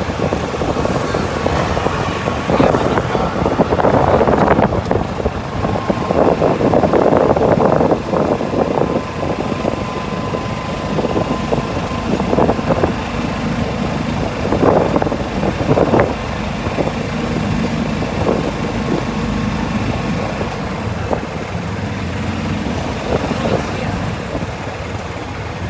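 Golf cart driving along a paved street: steady motor and tyre noise, with wind buffeting the microphone in gusts.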